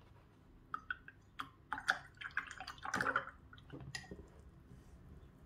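Paintbrush being rinsed in a jar of water: a series of small, faint splashes and drips, most of them around two to three seconds in.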